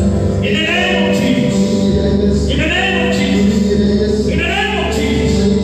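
Worship singing by a group of voices over steady instrumental accompaniment, in phrases that start about every two seconds.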